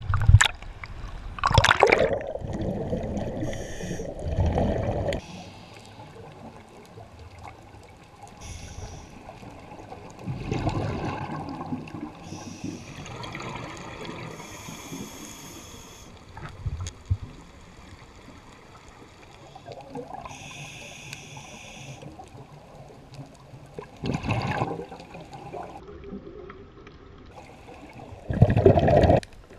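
Water splashing and sloshing against a half-submerged camera at the surface, then muffled underwater noise. Bursts of bubbles come every few seconds: scuba divers breathing out through their regulators.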